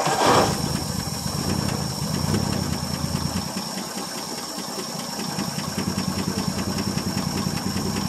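1959 Ford F250's six-cylinder truck engine idling with an even, rhythmic beat. It is on its first run after sitting about three years, a cold start.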